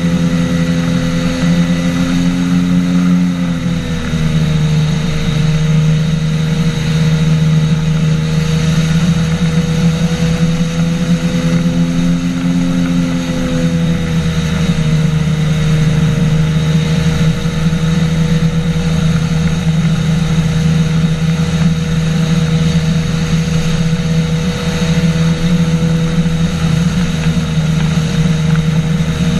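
Engine and pusher propeller of a flying boat, a flexwing microlight trike with an inflatable boat hull, running steadily in flight over a steady hiss. Its pitch drops a little about four seconds in, eases up again a few seconds later, and settles lower once more around the middle.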